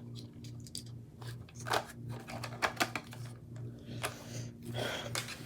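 Irregular light plastic clicks and taps as the hard body shell is fitted onto a Traxxas TRX-4M RC crawler chassis, over a faint low hum that pulses about twice a second.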